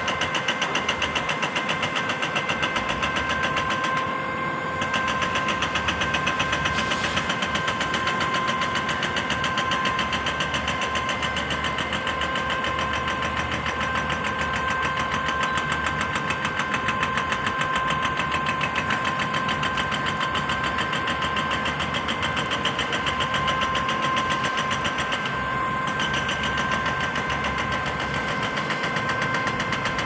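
The diesel engine of a KCP truck-mounted concrete boom pump running steadily at raised speed to drive the boom hydraulics, with a fast, even pulsing and a steady high whine over it.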